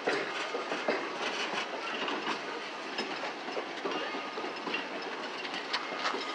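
Railroad cars of a heritage excursion train, open-sided passenger cars and a Southern Pacific baggage car, rolling past on jointed track: steady wheel rumble with irregular clicks and clanks from the wheels.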